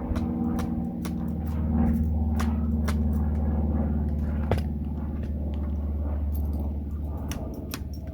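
Small hand-tool clicks, taps and scrapes as thick, clingy material is worked loose and prised out, over a steady low hum in the background.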